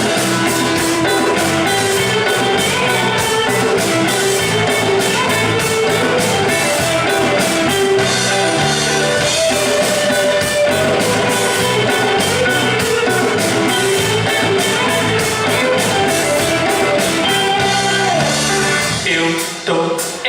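Upbeat band music with guitar and drum kit over a steady beat; the music dips briefly near the end.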